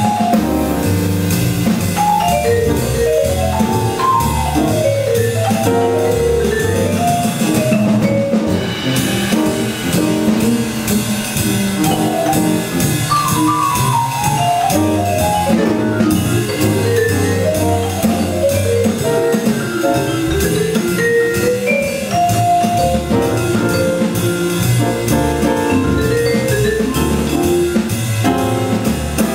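Live jazz: a vibraphone played with mallets in quick running lines that climb and fall, over double bass and a drum kit with cymbals.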